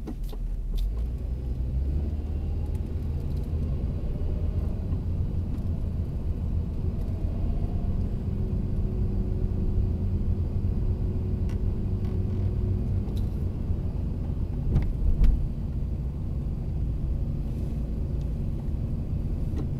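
Car driving slowly along a paved road, heard from inside the cabin as a steady low rumble of engine and tyres. A faint rising tone comes twice in the first several seconds, and a couple of knocks sound about fifteen seconds in.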